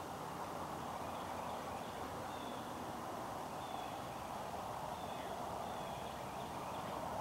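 Steady outdoor background noise with faint, short bird chirps every second or so.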